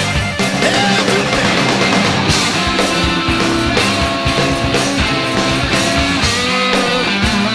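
Rock band recording in an instrumental passage with no vocals: electric guitar over bass and a steady drum beat.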